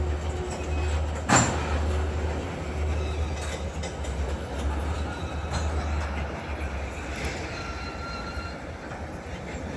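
Freight train of tank cars rolling slowly through a rail yard: a steady low rumble, with one sharp bang about a second in and a faint wheel squeal near the end.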